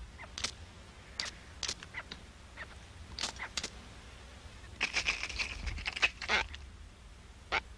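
Boobies giving short, sharp calls one at a time, with a quick run of them about five seconds in.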